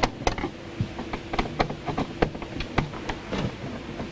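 Irregular light clicks and taps of a screwdriver and wires being worked at a hot tub control box's terminals, several a second, over a faint steady hum.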